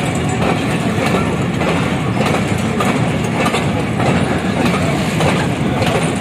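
Freight train of covered goods wagons rolling past close by: a steady rumble of steel wheels on rail, with repeated clacks as the wheels cross rail joints.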